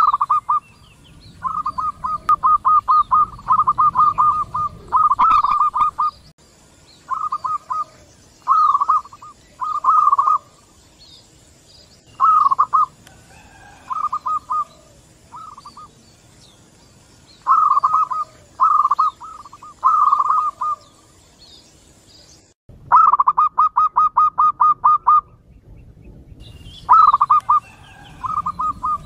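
Zebra doves (local perkutut) cooing back and forth, several birds answering one another. Each call is a quick run of staccato notes lasting a second or so, with pauses between calls.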